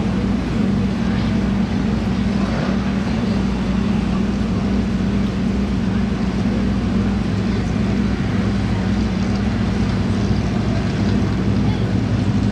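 Several stock V8 dirt-track race car engines running at a steady low caution pace, a continuous low drone with no revving.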